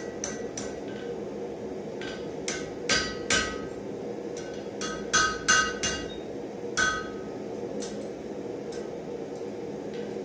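Hand hammer blows on hot steel, flattening a forged Mjolnir pendant: a run of irregular strikes, some with a short metallic ring, the loudest about three seconds and five seconds in, then thinning out. A steady hum runs underneath.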